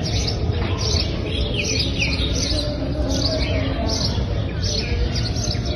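Small birds chirping, short high falling calls repeated about once or twice a second, over a steady low background hum.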